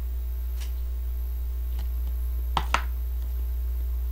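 A few small clicks and mouth sounds as an ice cream tub is tipped up to drink the melted remains, with two sharp clicks close together about two and a half seconds in, over a steady low hum.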